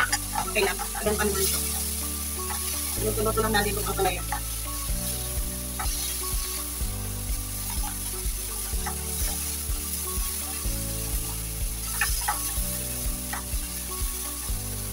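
Sliced bitter melon sizzling in a frying pan over a gas flame as it is stir-fried with chopsticks, which click and scrape against the pan now and then.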